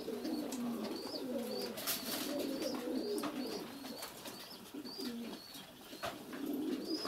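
Domestic pigeons cooing, a low wavering coo repeating again and again, with faint short high chirps recurring about twice a second.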